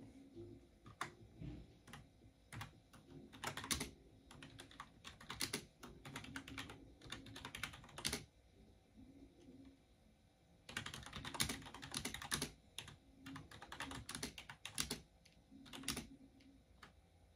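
Typing on a computer keyboard in irregular bursts of keystrokes with short pauses, and a fast, dense run of typing about eleven seconds in.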